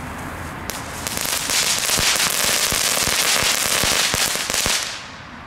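Small Category 1 ground firework burning on the pavement: a hissing spray of rapid crackles that starts about a second in, runs for nearly four seconds, then dies away.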